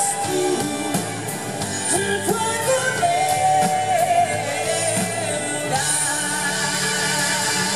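Live pop-rock band playing: a woman singing lead over electric guitar, drums and saxophone.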